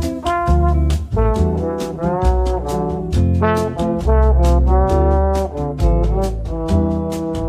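Background music: an upbeat jazzy tune with a brass melody over a steady drum beat.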